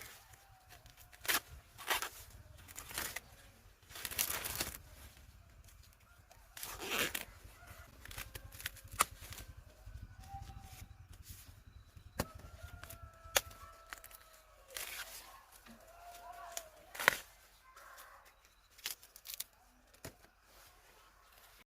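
Leaves and stalks being torn and snapped by hand in short, irregular crackles, as in picking crops. Hens cluck faintly in between.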